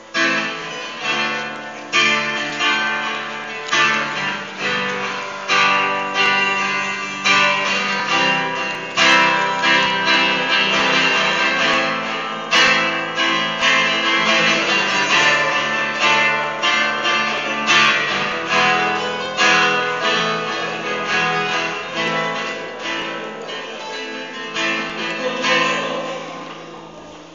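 Acoustic guitar strummed in a steady rhythm, playing an instrumental introduction to a song with no singing yet.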